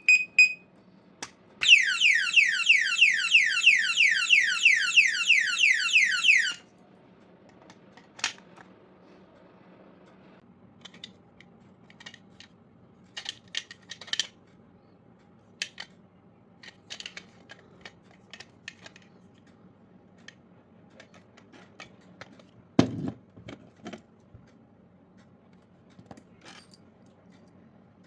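Security alarm padlock's siren going off after a short beep: a loud, rapid string of falling-pitch wails, about four a second, for about five seconds, then it stops. After that come scattered light clicks and taps, with one sharper knock near the end.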